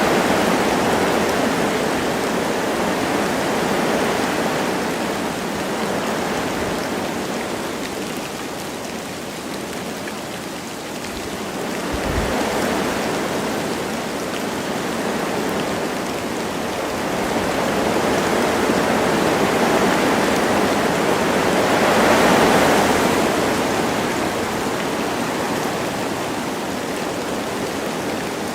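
Wind blowing through forest trees with light rain, a steady rushing that swells and eases in slow gusts every few seconds.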